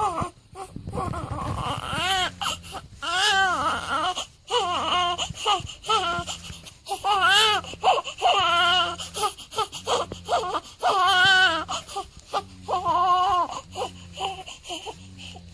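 Newborn baby crying in short repeated wails, about one a second, each rising and falling in pitch; the cries get quieter near the end.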